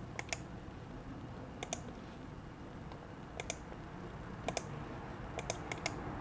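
Computer clicks: a handful of short sharp clicks, mostly in quick pairs about a second or more apart, over a faint room hum.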